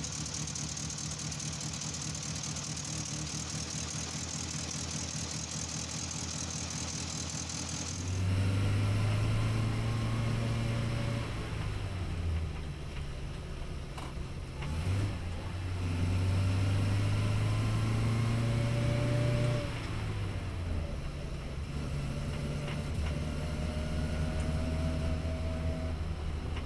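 1954 Morris Minor's engine idling steadily with the bonnet open. About eight seconds in it switches to the car's engine heard from inside while driving: the engine note rises as it pulls through a gear and drops at each gear change, three times.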